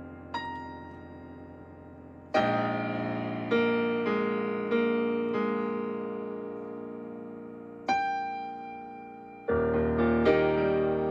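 Piano playing slowly: a single high note, then chords struck one after another and left to ring and fade.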